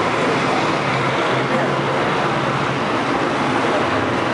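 Farm tractor engine running loud and steady under full load, pulling a weight-transfer sled.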